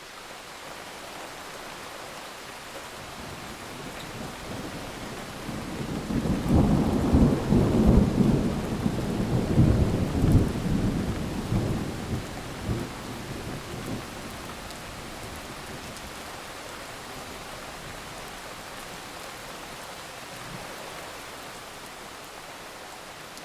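Thunderstorm: steady rain with a long roll of thunder that builds about five seconds in, rumbles loudest for several seconds, then dies away, leaving the rain.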